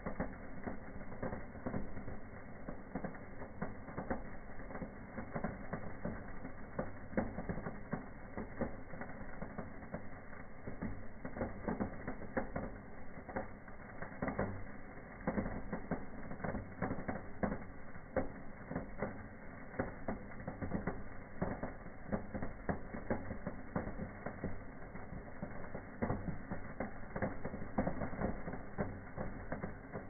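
Indoor fireplace fireworks burning: spark fountains and silver-rain effects giving a dense, irregular stream of crackles and small pops.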